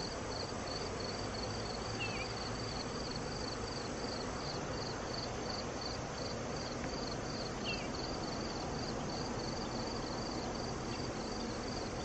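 A cricket chirping steadily at about three chirps a second over a constant background hiss, with a few brief, higher short chirps mixed in.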